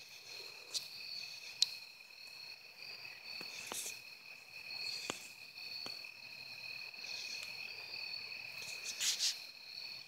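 Night chorus of crickets trilling steadily at two high pitches, with a few scattered sharp clicks, the loudest about one and a half seconds in, and a short scratchy burst near the end.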